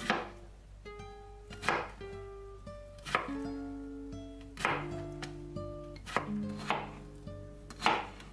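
Knife chopping food on a cutting board: about seven separate, sharp cuts, spaced a second or so apart, over gentle plucked-string background music.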